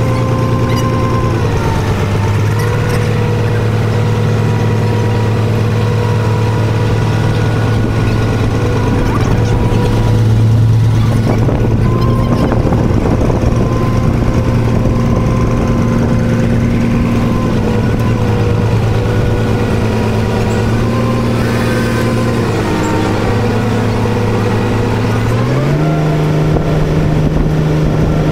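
Canal boat's engine running steadily under way. Its pitch drops slightly about a second and a half in, then rises to a higher steady note near the end as the engine speeds up.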